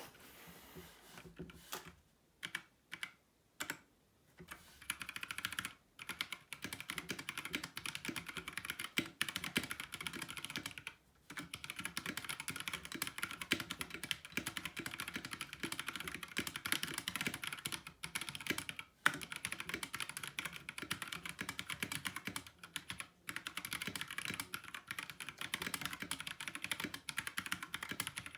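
Typing on a Mecharite Apex True RGB 60% mechanical keyboard with Kailh linear switches: a few separate keystrokes at first, then fast continuous typing from about four seconds in, with a couple of brief pauses.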